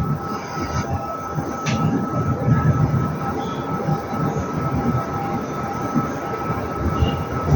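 Alpha COSA CX8 56-inch ceiling fan running: a low rumbling rush of air with a steady motor hum held on two tones. Two faint clicks come in the first two seconds.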